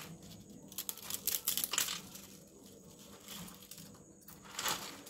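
Short scattered rustling and crinkling noises, a cluster of them about a second in and another near the end.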